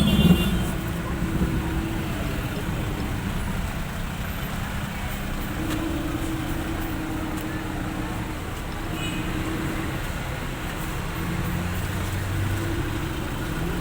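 Road traffic: a steady rumble of passing vehicles, with engine hums that come and go.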